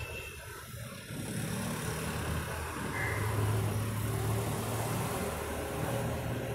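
A motor vehicle engine running, a steady low hum under a broad hiss that grows louder about a second in.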